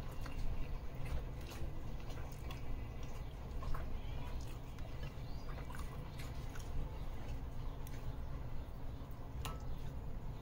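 Soft, squishy handling sounds of a grilled chicken ciabatta sandwich being lifted off a plate and held, with a few small clicks and crackles scattered through, over a steady low hum.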